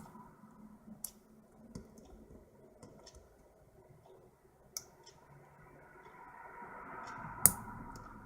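Lock pick and tension tool working the pins of a small Master Lock padlock: scattered sharp metallic clicks and ticks, with louder ones about a second in, near five seconds and near the end, over a faint hiss that grows toward the end.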